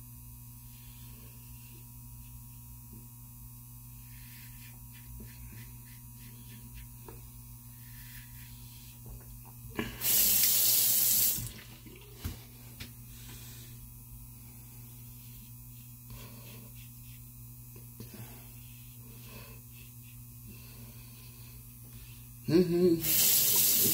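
Bathroom faucet running in two short bursts, about ten seconds in for a second and a half and again near the end. Between them, the faint scratch of a single-edge razor cutting through lathered week-old stubble over a steady low hum.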